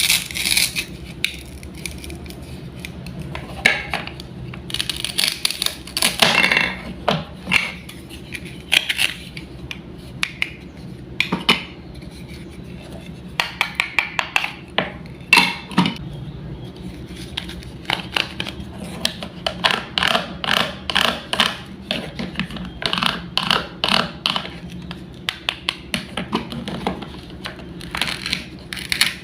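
Wooden toy fruits and vegetables being cut and handled with a toy knife: irregular clicks and taps of wood on wood, with short scraping stretches.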